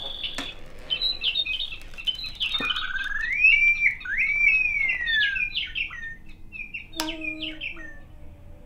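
Bird-like chirps and whistles, with several long whistles sliding up and down in pitch a few seconds in.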